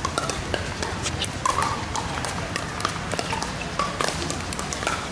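Pickleball paddles hitting the plastic ball: sharp pocks at an irregular pace, several a second, from games on several courts at once.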